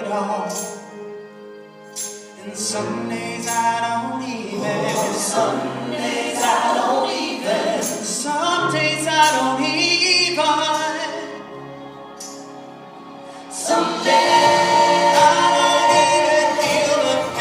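Live vocal music: a lead singer with choir-like backing voices, swelling louder and fuller about fourteen seconds in.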